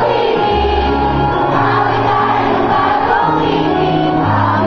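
A choir singing a church hymn with instrumental accompaniment, held bass notes changing every second or so beneath the voices.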